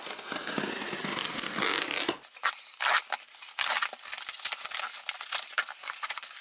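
Cardboard delivery box being opened: a steady rasping tear for about two seconds, then a dense run of sharp crackles and rustles as the packing is handled.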